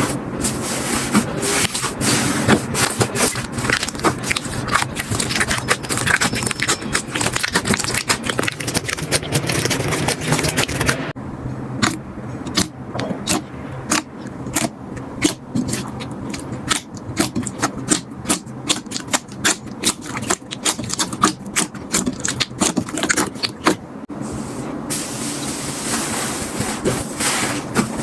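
Slime being squeezed and poked by hand, giving a dense run of wet crackles and pops. Through the middle of the stretch the pops thin out into sharper, separate clicks, then grow dense again near the end.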